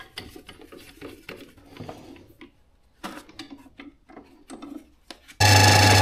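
Faint, irregular scraping and light knocking of hand work on metal at a workbench, with a short near-silent gap in the middle. About five and a half seconds in, a loud steady hum starts suddenly.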